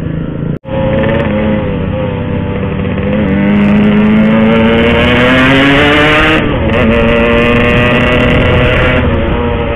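Yamaha RX-King's two-stroke single-cylinder engine pulling under acceleration. Its pitch climbs for about three seconds, then dips at what sounds like a gear change a little past the middle, and holds steady after that.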